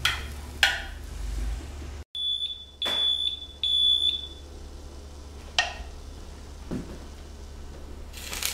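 Electric waffle iron beeping three times, high and steady, its signal that the waffle is done. Around the beeps are sharp clicks and knocks of its hinged metal lid being closed near the start and lifted near the end.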